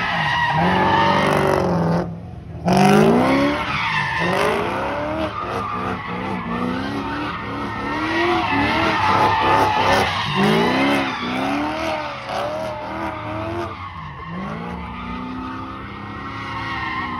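BMW E90 M3's S65 V8, through a valved straight-pipe exhaust, revving up and down over and over as the car does donuts, with the rear tyres skidding and squealing. The sound dips briefly about two seconds in.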